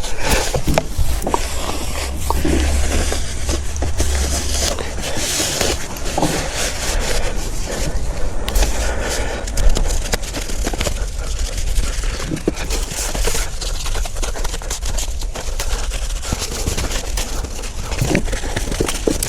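Hands-on workshop handling noise: scraping and rubbing with many small clicks and knocks of parts being moved about, over a low steady hum.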